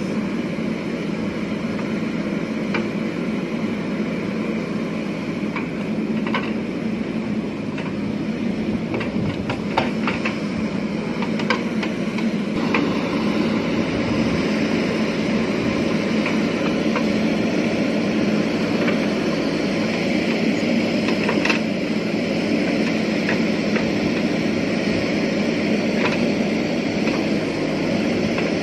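JCB 3DX backhoe loader's diesel engine running steadily under load as the backhoe arm digs and swings soil, with occasional short sharp clicks and knocks over it.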